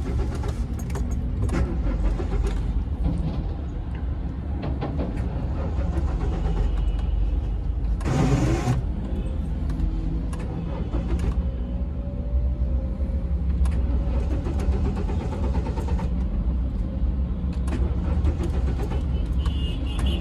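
Car engine being cranked by its starter motor again and again without catching, a car that won't start. A brief louder noise comes about eight seconds in.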